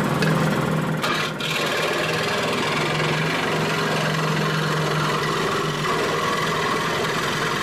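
Makita SJ401 variable-speed scroll saw running steadily at medium speed, its blade cutting through a thin wooden board as it is fed in.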